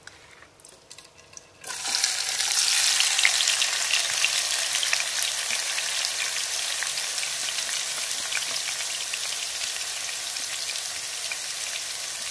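Marinated mutton chops dropped into hot oil in a nonstick wok, sizzling loudly with a spattering crackle. The sizzle starts suddenly about two seconds in, after a few faint taps, and eases slightly toward the end.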